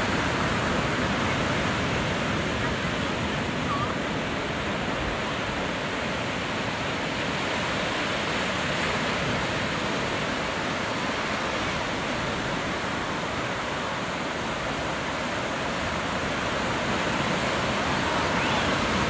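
Ocean surf breaking and washing up the shore, a steady unbroken rush of noise.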